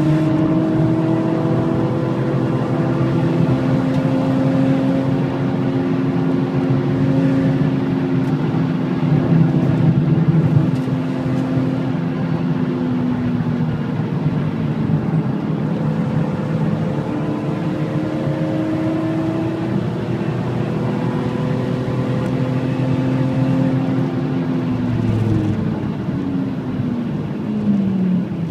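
BMW M3 E46's 3.2-litre straight-six engine at high revs, heard from inside the cabin with road and wind noise, pulling steadily through fast corners with the pitch dipping and climbing again about halfway. Near the end the car brakes hard and the engine note steps down through several quick downshifts of the SMG gearbox.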